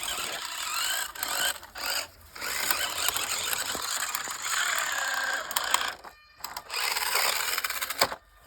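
Toy RC car's small electric motor and gearbox whirring with a ratcheting, gear-rattling noise, rising and falling in pitch as the throttle changes and stopping briefly about two seconds in and again about six seconds in. The rattle comes from a gear cog that came off, which the owner says does not affect how it runs.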